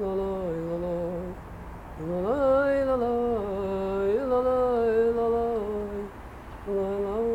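A voice humming a wordless tune in long held notes, in three phrases with short breaks about two seconds in and near the end.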